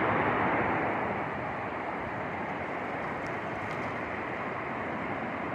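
Water rushing steadily over river rocks at a small waterfall, a little louder for the first second, then even.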